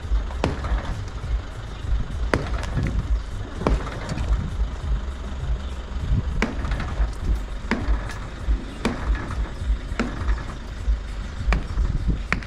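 Irregular sharp knocks, roughly one every second or so, over a steady low rumble: construction work on a building site.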